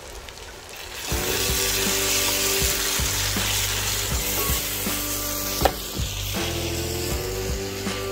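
Onion-tomato masala for a salna sizzling in a pot as it is stirred with a slotted spatula, starting about a second in. The spatula knocks against the pot as it goes, with one sharper knock a little before six seconds.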